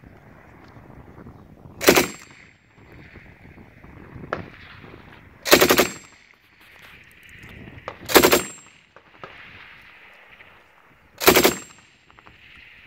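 PK general-purpose machine gun (7.62×54mmR, belt-fed) firing four short bursts a few seconds apart, the first the shortest.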